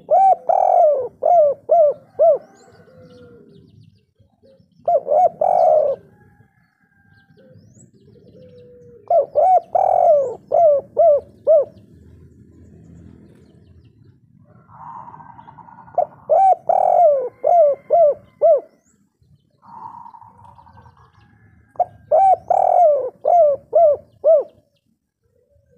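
A caged spotted dove (tekukur/derkuku) cooing its "kuk 3" song. It gives five phrases, each a quick run of about five or six short coos, with pauses of a few seconds between them.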